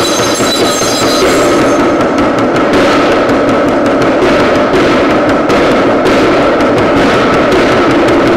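Dhyangro, the Nepali shamanic frame drum, beaten in a fast continuous stream of strikes over a steady, dense drone-like backdrop. A set of high steady ringing tones stops about a second in.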